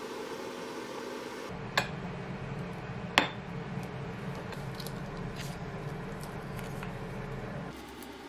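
A brief steady frying hiss from pork belly in a pan. Then a metal spoon scooping thick ssamjang paste from a plastic tub onto a small dish, with soft squishing, a sharp clink about two seconds in, a louder one about three seconds in, and a few lighter taps.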